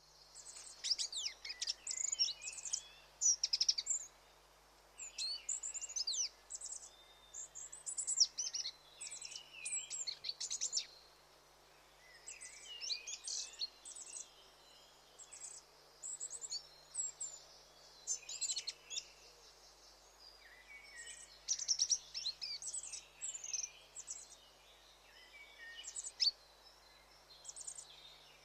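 Birds chirping and twittering in quick, high-pitched phrases, one cluster of rapid notes after another with short pauses between.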